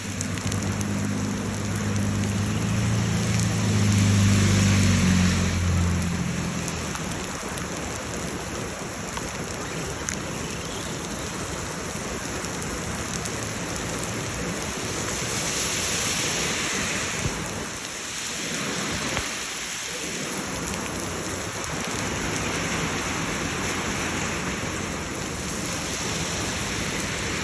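Heavy rain falling, with a steady hiss of rain and running water in a flooded gutter. A low steady hum sounds under it for the first several seconds, then fades out.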